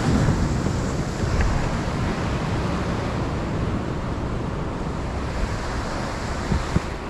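Surf washing on the beach, with wind buffeting the microphone; the wash eases off slowly.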